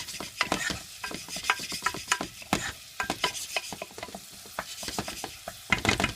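Chopped onion sizzling in hot vegetable oil in a pot while being stirred, with a steady hiss of frying and frequent irregular scrapes and clicks of the utensil against the pot.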